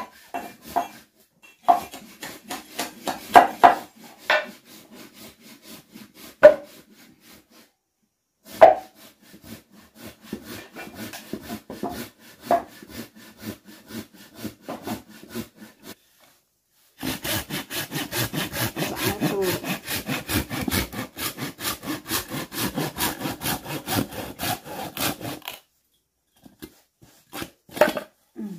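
Hand saw cutting through wooden blocks in quick back-and-forth strokes. The strokes come in short runs, then one long, louder run in the second half, with a few separate wooden knocks in between.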